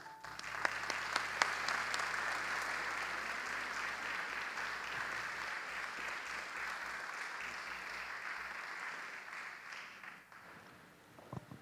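An audience applauding in a large hall, starting just as the accompaniment stops and dying away about ten seconds in.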